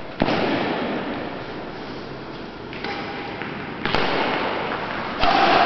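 Badminton rackets striking a shuttlecock during a rally: a few sharp hits, one just after the start, one about four seconds in and one near the end, echoing in a large sports hall.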